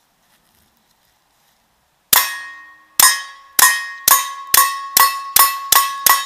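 A Smith & Wesson M&P .22 pistol fired through a .223 suppressor: nine shots starting about two seconds in, coming faster toward the end. Each shot is followed by a metallic ringing that dies away.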